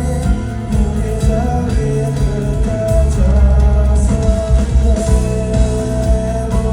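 Live band playing a song, with a held, gliding melody line over heavy bass and drums, and singing.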